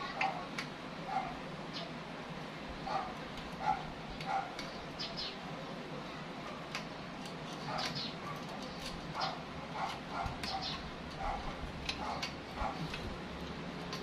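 A dog barking, many short barks repeated irregularly.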